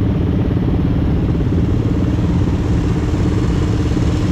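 Small engine of an ATV running steadily at a constant speed.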